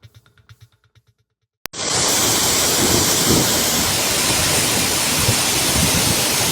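Faint rhythmic music fades out, then after a brief gap a sudden loud, steady rush of heavy pouring rain starts and keeps on, with low rumbling thuds underneath.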